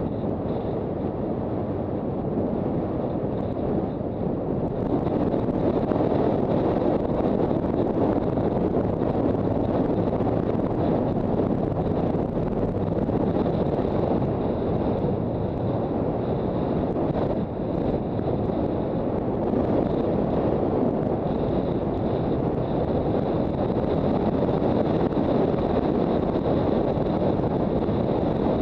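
Wind rushing over the microphone of a motorcycle on the move, with the Honda CB400 Super Bol d'Or's inline-four engine running faintly underneath. The rush grows louder about five seconds in and then holds steady.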